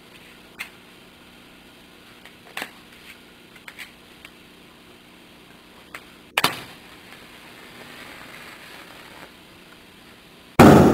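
A match struck and flaring about six seconds in, then near the end a loud, sharp pop as the soap-bubble foam filled with hydrogen from water electrolysis ignites, the pop that shows the gas is hydrogen.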